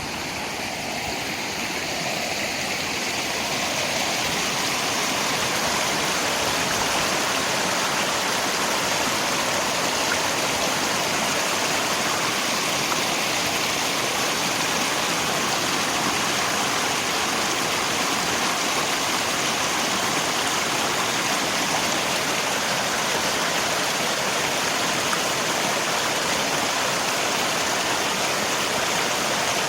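River water rushing together with falling rain, a steady, even rush that swells up over the first few seconds and then holds.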